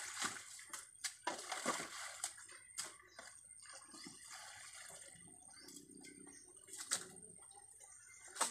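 Buckets scooping and flinging muddy water out of a shallow ditch: a run of splashes and sloshes in the first few seconds, a quieter stretch, then another splash about seven seconds in.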